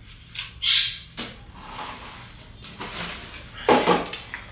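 Metal bars and joints of an Easy Dryer Deluxe three-tier fold-away heated clothes-drying rack knocking and scraping as it is unfolded and handled: a series of separate knocks and scrapes, the loudest near the end.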